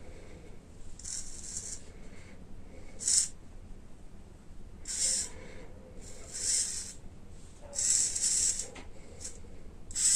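Small hobby RC servos whirring briefly as the transmitter sticks move them, about six short high-pitched whirs a second and a half to two seconds apart.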